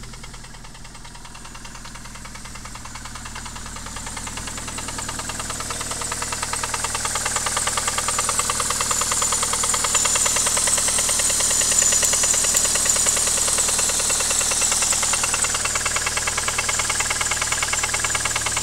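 1999 Ford Contour's Zetec four-cylinder engine running with a rapid, even knocking, growing gradually louder over the first half. The owner cannot tell whether the knock is a rod or a lifter, and hopes it is just a lifter.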